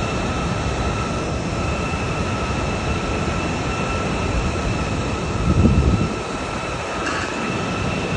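Steady roar of floodwater pouring through the breached Kakhovka hydroelectric dam, with a faint steady high whine over it. A louder low rumble swells about five and a half seconds in.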